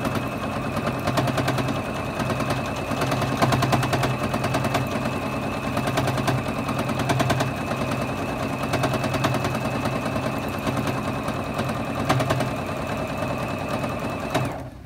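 Juki Exceed HZL-F600 sewing machine stitching fast and continuously during free-motion quilting: a rapid run of needle strokes over a steady motor whine. It stops suddenly near the end.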